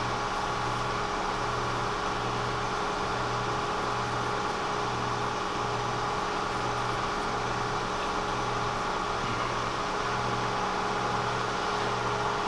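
Kearney & Trecker horizontal milling machine running without cutting: a steady machine hum with a few steady tones and a low throb that pulses about twice a second.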